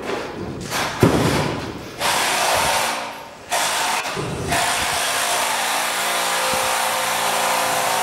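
A power tool whirring on a construction site, starting and stopping in spurts, then running steadily from about three and a half seconds in.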